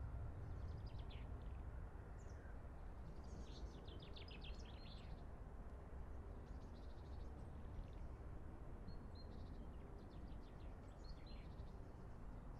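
Small songbirds chirping and singing in short clusters of quick high notes every second or two, over a steady low rumble of background noise.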